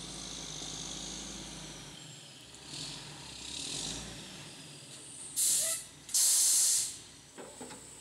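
Air hissing from a concrete mixer truck, as from its air brakes: two loud, sudden hisses about five and six seconds in, the second longer, after two softer hisses a little earlier, over the low rumble of the truck's engine.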